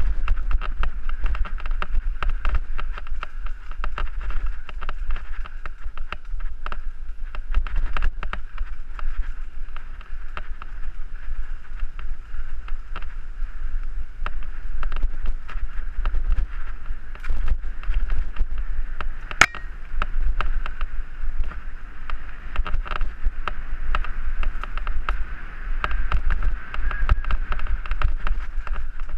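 Mountain bike ridden along a rough dirt singletrack, heard from a helmet camera: steady wind rumble on the microphone with frequent knocks and rattles from the bike over the bumpy ground, and one sharp click about two-thirds of the way through.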